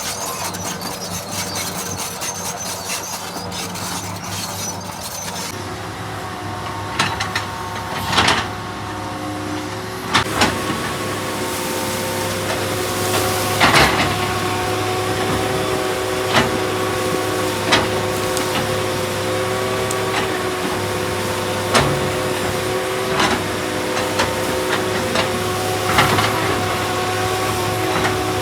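A heavy excavator's diesel engine running steadily under load. Sharp metal clanks come every few seconds, about nine of them.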